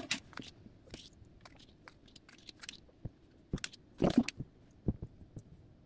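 Faint rustling with scattered crinkles and taps as photocards, polaroids and their packaging are handled, a few sharper crinkles about three and a half to five seconds in.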